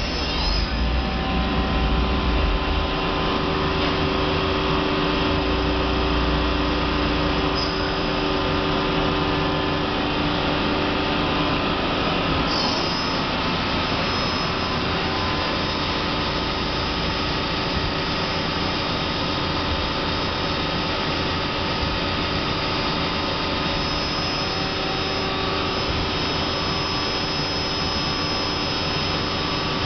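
Hardinge Quest 10/65SP CNC turning center running a program: a steady machine hum with several whining tones from its motors and drives. A heavier low rumble eases off about seven seconds in, and short high chirps come near the start and twice more, about 7 and 12 seconds in.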